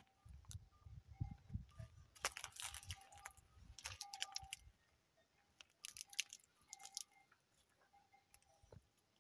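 Faint crunching and crackling of footsteps on dry straw and gravel, in irregular bursts over a low rumble that fades out about halfway through.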